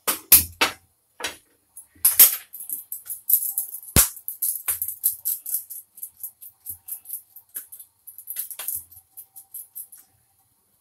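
Irregular light clinks, jingles and rustles of hands working at a kitchen counter beside a gas stove, with one sharp knock about four seconds in.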